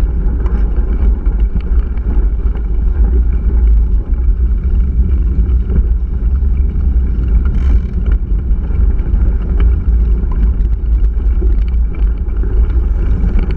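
Mountain bike rolling down a gravel track, heard through a handlebar-mounted action camera: a loud, steady low rumble of wind and frame vibration, with scattered small clicks and rattles from the tyres on gravel.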